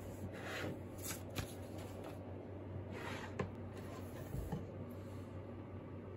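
A wooden slice, a log round with bark edge, scraping across a wooden desk top in a few short slides, with light knocks as it is handled and lifted.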